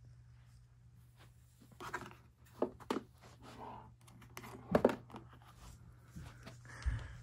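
Plastic housing of a Lakewood WC-2500 floor fan knocking and rattling as it is handled and tipped over by hand, a string of sharp knocks with the loudest a little past halfway, over a steady low hum.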